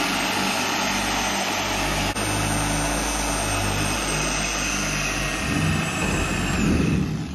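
Inexpensive Harbor Freight corded dual-action polisher running with 1500-grit sandpaper, wet-sanding paint: a steady motor whine over the scrub of the pad on the wet surface, with one click about two seconds in. Near the end the motor's pitch starts to drop as it winds down.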